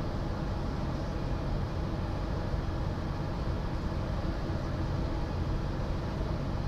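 Steady road noise inside a moving car's cabin: tyre rumble on the pavement with a low, even engine hum.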